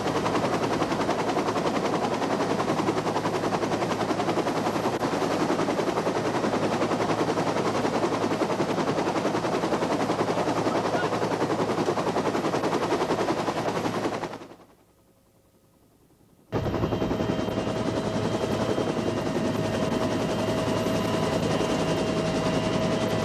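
Military helicopter heard from inside the cabin: dense, rapidly pulsing rotor and engine noise. It cuts out abruptly for about two seconds about two-thirds of the way through, then returns with a steady whine added.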